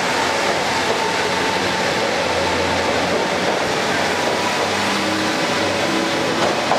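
KiHa 40-series diesel railcars moving past along the platform: diesel engines running and steel wheels on the rails, a steady, even train noise, with a short click near the end.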